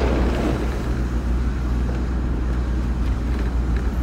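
Steady low drone of road and engine noise inside a moving car's cabin.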